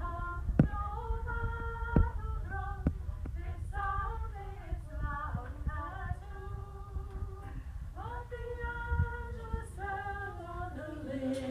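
A group of people singing a folk song together in unison, a woman's voice standing out, with no instruments clearly heard. A few sharp knocks cut through the singing, loudest about half a second and two seconds in.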